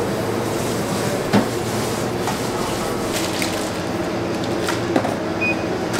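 Steady mechanical hum over a wash of noise, with two light knocks, one about a second and a half in and one near five seconds.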